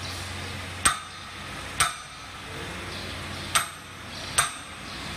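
Four sharp metal knocks with a short ring, in two pairs about a second apart, as the metal lever and clamp block of a hinge joint fence machine is handled and set for the cross-wire spacing.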